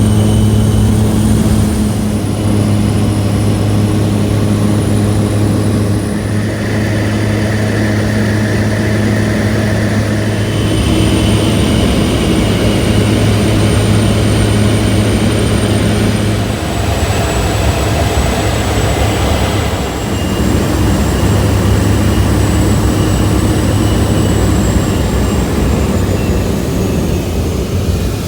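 Small propeller airplane's engine running steadily in flight, heard from inside the cabin: a loud, even drone with a thin high whine over it.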